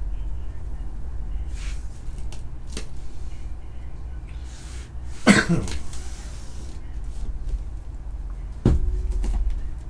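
Shrink-wrapped trading card boxes being handled on a table, with small rustles and taps, over a steady low hum. A short cough about halfway through and a sharp knock near the end are the loudest moments.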